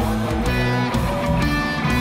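Background music with a steady beat and sustained guitar-like notes.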